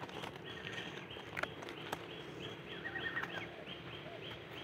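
Forest ambience with a small animal's short chirps repeating evenly, about two to three a second, starting about two seconds in, plus a few faint sharp clicks.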